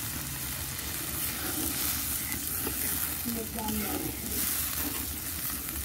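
Catfish curry sizzling and bubbling in a karahi, with a metal spoon stirring through it. Water has just gone in on the fried fish and spices, and the thin gravy is coming up to the boil. A steady hiss.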